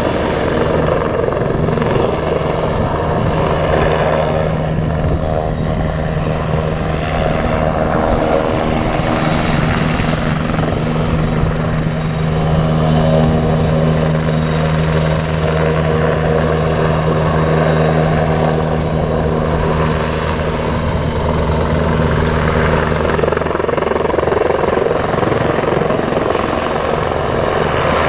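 Eurocopter Tiger attack helicopter flying overhead, its rotor beat and twin turboshaft engines loud and continuous, the pitch wavering slightly up and down as it banks and turns.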